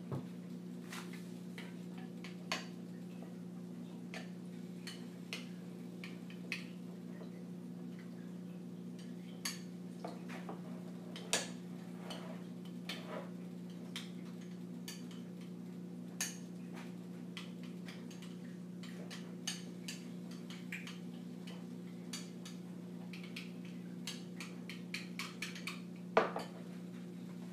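Kitchen ambience: a steady low hum under scattered light clinks and knocks of pots, pans and cutlery. There is a louder clank near the end.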